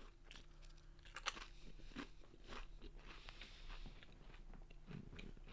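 Chewing a crunchy Pringles potato crisp close to the microphone: faint, irregular crunches, the sharpest about a second in.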